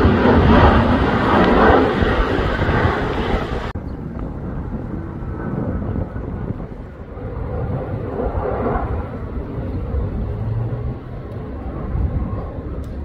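Loud jet engine noise from a pair of single-engine fighter jets passing overhead. About four seconds in it cuts off abruptly to a fainter, duller rumble from a single jet flying far off.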